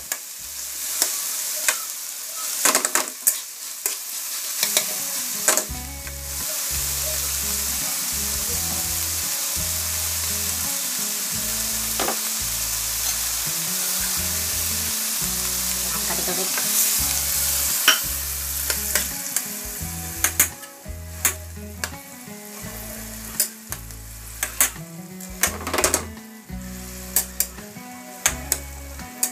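Ground pork with diced carrots and potatoes sizzling in a wok while a metal slotted spatula stirs it, clicking and scraping against the pan. The sizzle is steady and strongest through the middle; the spatula clicks come thick near the start and again in the last third.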